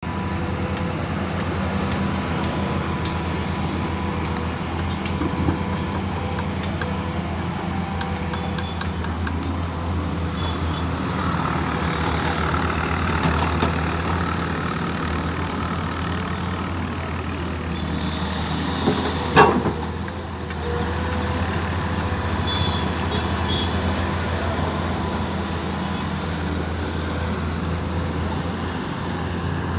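Hydraulic excavator's diesel engine running steadily under work, with a single sharp knock about two-thirds of the way through.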